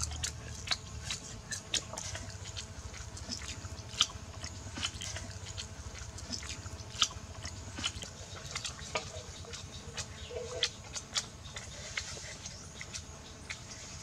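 People eating cooked crocodile eggs by hand, chewing with many irregular wet mouth clicks and lip smacks.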